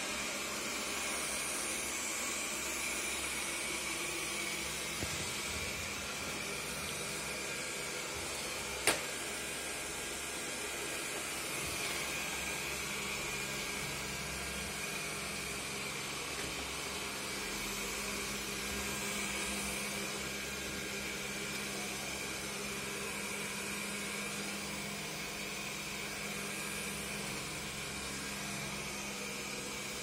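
Xiaomi Mi robot vacuum running steadily, its suction fan giving an even whirring hiss. One sharp click about nine seconds in.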